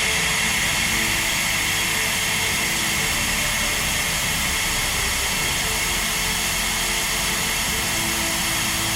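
Steady loud hiss of air rushing out of a tire through an Apex Designs RCV rapid-connect valve while it is aired down from about 35 PSI toward 25 PSI.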